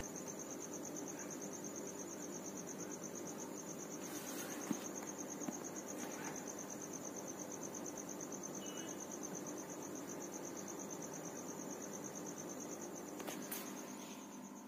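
A cricket chirping steadily in the background: one continuous high, rapidly pulsing trill over faint room hum, with two small clicks partway through.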